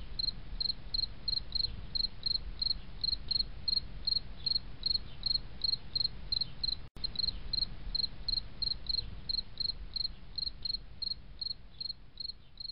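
Cricket chirping steadily, about two and a half short, high chirps a second, over a low background rumble. There is a momentary break a little past halfway, and it fades toward the end.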